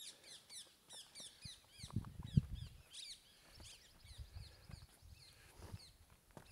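Small birds chirping and singing, many quick rising and falling notes a second, over irregular low thumps and rumble from the ride, the loudest thump a little over two seconds in.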